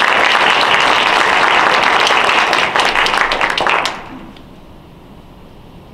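Audience applauding: dense clapping from many hands that dies away about four seconds in.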